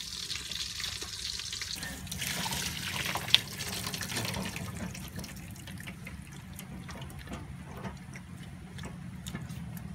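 Boiled banana blossom strips and their cooking water poured from a metal pot into a wire mesh strainer, the water splashing and draining through, with one sharp clink a little over three seconds in. Later it turns quieter, to trickling and dripping with small ticks.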